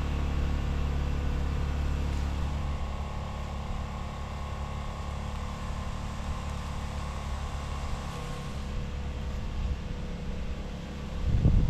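An engine running steadily: a low hum with a steady higher tone, easing off slightly after a couple of seconds. There is a brief, louder noisy knock or rustle near the end.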